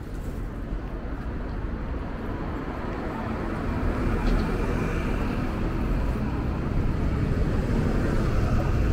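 Steady vehicle rumble on a city street, growing gradually louder as it approaches.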